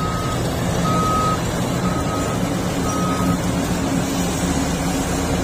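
Diesel engines of a large mining excavator and haul truck running steadily, with a reversing alarm beeping about once a second, four times, then stopping a little past halfway.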